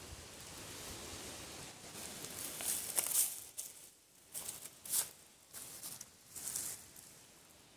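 Footsteps and shuffling on dry fallen leaves: a handful of short crunching rustles, bunched between about two and a half and seven seconds in.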